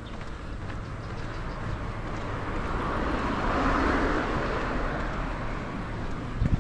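A car passing on the road alongside: tyre and engine noise swelling to a peak about halfway through and then fading away, over a steady low rumble. A sharp thump near the end.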